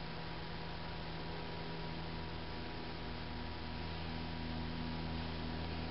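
Steady electrical mains hum over a faint even hiss, with one extra tone joining about three seconds in. No tool or part sounds.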